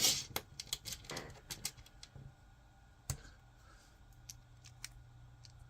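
Small sharp clicks and taps, quick and irregular for the first two seconds, with one louder click about three seconds in: small screws and 3D-printed plastic parts being picked up and handled.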